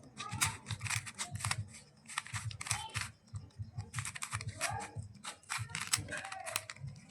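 Rubik's cubes being turned quickly by hand, their plastic layers clicking and clacking in rapid, irregular runs of several turns a second.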